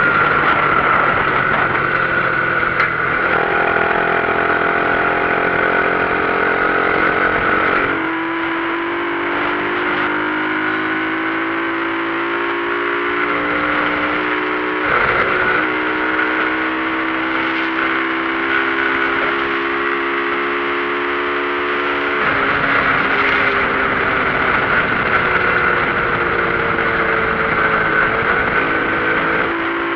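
Motorcycle engine running under way, its pitch shifting in steps every several seconds and sagging slightly between shifts, as with changing gears and speed.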